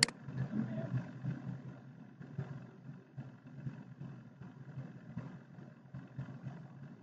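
A sharp computer-mouse click right at the start, then a low, uneven rumble of background noise.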